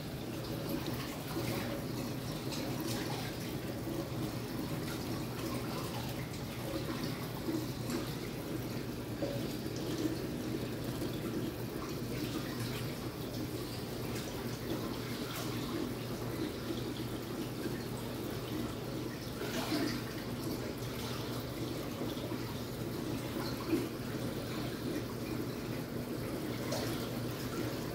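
Water running and trickling in a reef aquarium's coral frag tank, over a steady low hum.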